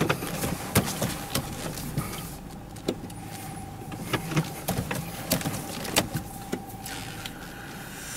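Inside a car's cabin as it creeps along at low speed: a steady engine and road rumble with a constant hum, overlaid by repeated sharp clicks and knocks close to the microphone.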